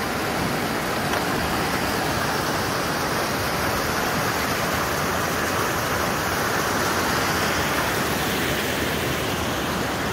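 A small rocky creek cascading over rocks and through fallen logs, making a steady, even rush of water.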